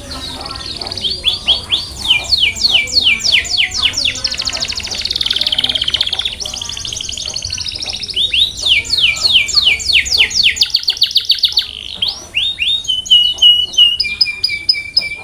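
Canary singing a long, loud song of repeated phrases: fast trills of falling sweeps, a buzzy rolling phrase, then a few short steady whistled notes near the end.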